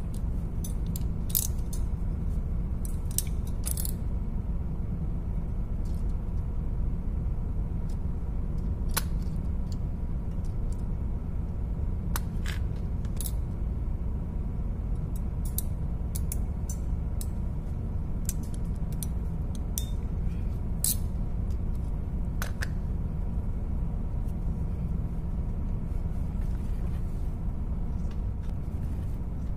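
Scattered sharp metallic clicks and taps of pliers and a ring-terminal cable lug being handled at a truck battery's terminal, over a steady low hum.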